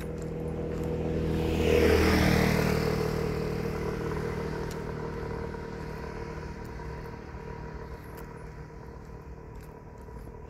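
A motor vehicle drives past, its engine and tyre noise growing louder to a peak about two seconds in, then fading slowly.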